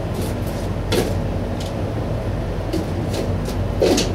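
Paint cans, cups and bottles being picked up and set down on a workbench, a few short knocks and clinks, the sharpest about a second in and just before the end, over a steady low machine hum.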